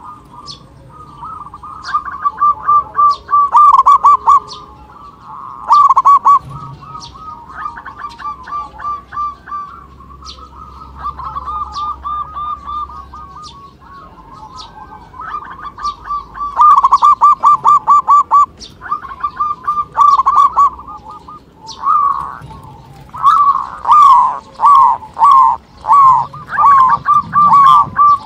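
Zebra dove (perkutut) singing: repeated phrases of rapid cooing notes, each phrase lasting a second or two with short pauses between. Near the end the notes come slower and more evenly spaced.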